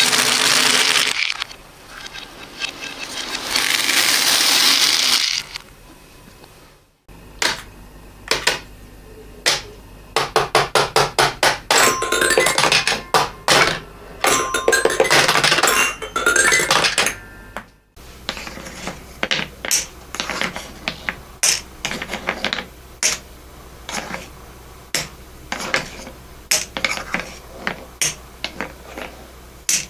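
Small hard objects such as beads and marbles clattering, played in reverse. A loud hissy pouring wash comes first. After an abrupt cut there are dense rapid clicks mixed with some ringing tones, and after a second cut the clicks come sparser.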